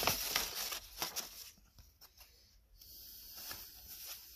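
Paper and thin cardboard rustling and sliding against each other as a wrapped package is handled and pulled at by hand, loudest in the first second and a half, then softer.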